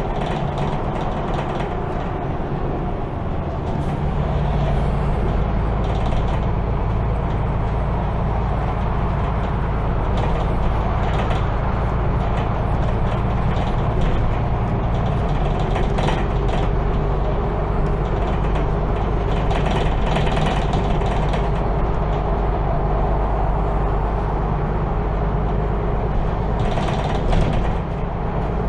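Cabin sound of a MAN Lion's City G articulated city bus under way: the engine and drivetrain run steadily over road noise, with scattered clicks and rattles from the interior. The engine note changes about four seconds in.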